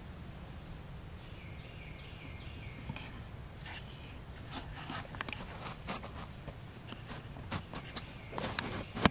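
Rustling and crackling in dry leaves, growing busier in the second half, with the loudest crunch near the end. Early on comes a quick run of about six short high notes.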